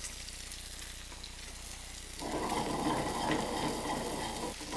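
Skin-on Chilean sea bass sizzling steadily in a hot skillet. About two seconds in, a louder scraping rush lasting a couple of seconds as the skillet of black rice and roasted beets is shaken on the burner.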